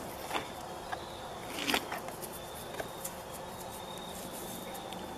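Light knocks and scrapes of plastic jugs and a cardboard cover being handled, the loudest a rustling scrape about a second and a half in. A steady, high-pitched insect drone runs underneath.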